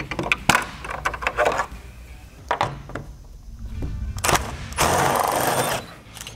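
A run of sharp clicks and knocks as grille trim and tools are handled, then a cordless drill spins a socket on a 10 mm grille bolt for about a second near the end.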